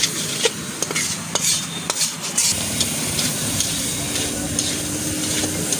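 A metal spatula stirs and scrapes chicken pieces around a steel kadai over a steady frying sizzle, with sharp clinks against the pan that come thickest in the first couple of seconds.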